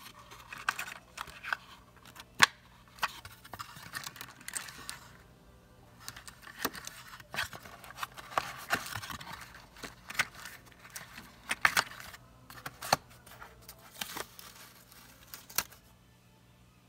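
Cardboard cartridge box and a paper tag being handled: the box's flap folded closed, with scattered sharp clicks and short rustles of cardboard and paper. The sharpest click comes about two and a half seconds in.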